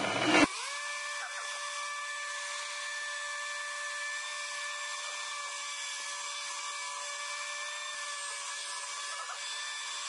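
Stick blender motor running steadily with a high, even whine as it mixes soap batter that is starting to thicken. A brief louder churn comes in the first half second before the whine settles.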